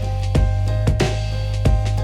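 Background music with a steady drum beat over sustained bass and synth tones.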